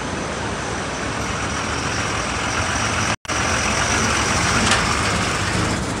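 Steady rushing of water pouring from a dam's open spillway gates. After a sudden break about three seconds in, truck engines run slowly under a similar steady rush.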